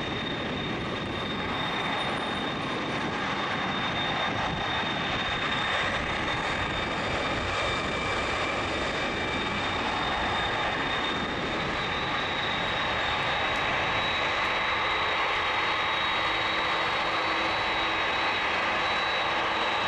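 A McDonnell Douglas MD-11F's three jet engines running at taxi power: a steady jet whine with a high ringing tone over a rush of engine noise, growing a little louder in the second half.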